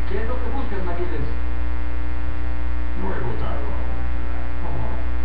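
Loud, steady electrical mains hum with a long ladder of overtones, over faint, indistinct voices.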